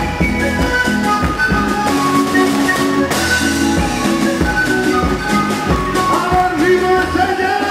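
Live Andean folk band playing: a panpipe melody over a strummed small guitar and electric bass, with a steady beat.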